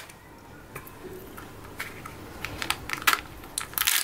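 Hands handling an opened Kinder Joy egg: small plastic clicks and foil or wrapper crinkles as the toy capsule is opened and the toy pieces are taken out. The taps come at irregular intervals, with a few louder ones close together near the end.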